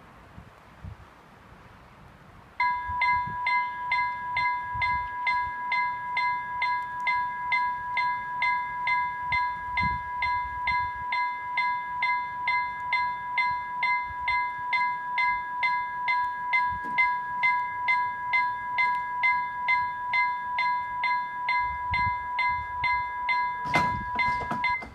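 Electronic level-crossing bell (e-bell) starting about two and a half seconds in and ringing an even, rapid ding-ding, about two to three strikes a second over a steady ring, as the crossing warns of an approaching train. Near the end a single knock is heard as the barrier arms come down, and the bell stops.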